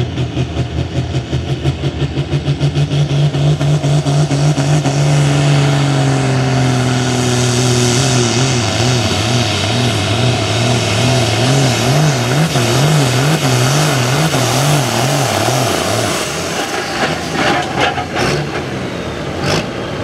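Ford 8000 diesel farm tractor's engine running flat out through a sled pull, its note slowly falling under the load, then wavering rapidly up and down. The engine drops away near the end as the run finishes, with a few sharp clicks after it.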